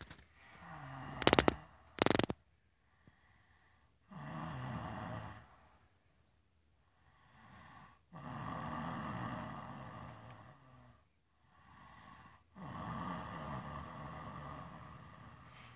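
A heavyset man snoring: three long, rough snores a few seconds apart, with quieter breaths between. Two short, sharp loud noises come about one and two seconds in.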